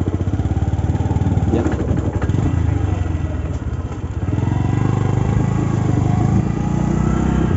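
Motorcycle engine running under way, with road noise. It eases off about halfway, then picks up and rises in pitch again.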